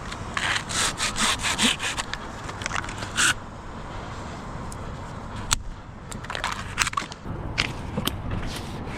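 Hand saw cutting pine wood in quick back-and-forth strokes, about three a second for the first three seconds, followed by a few scattered scrapes and knocks.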